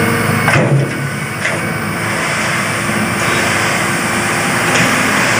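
Loud, steady rushing engine noise with a faint hum, like a jet or heavy vehicle engine, played as a sound effect for a toy truck.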